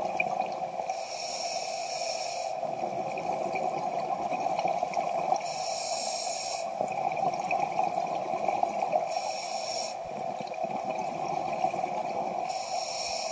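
Scuba diver breathing through a regulator underwater: four hissing inhales, about one every four seconds, with bubbling exhales between, over a steady hum.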